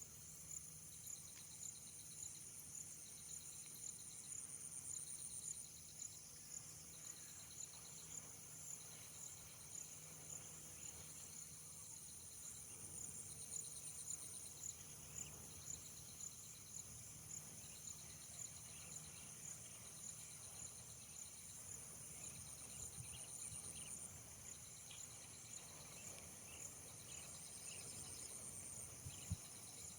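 Faint chorus of insects: a steady high-pitched trill pulsing about once a second, with a second, lower trill that starts and stops every couple of seconds.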